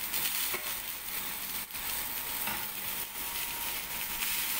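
Chicken and aromatics sizzling in a stainless steel saucepan with soy sauce just added, stirred with a wooden spatula, with a couple of light knocks of the spatula against the pan.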